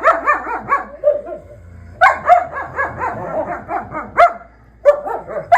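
A dog yapping: quick high-pitched barks, several a second, in three runs with short pauses between them.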